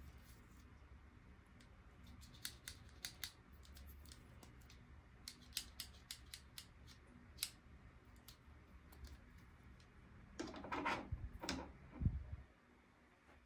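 Small plastic toy pieces and packaging being handled during an unboxing: a scattering of sharp clicks and snips, then a short burst of rustling and a thump near the end.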